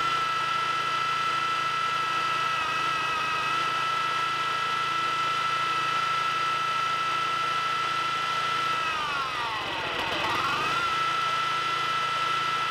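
Small four-stroke engine running steadily with Seafoam being fed into its carburetor intake. About nine seconds in its speed sags and its pitch drops, then it picks back up to its steady pitch about two seconds later.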